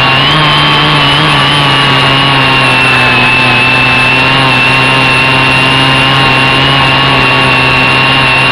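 Quadcopter's electric motors and propellers whirring with a steady high whine, the pitch wavering slightly as the throttle shifts.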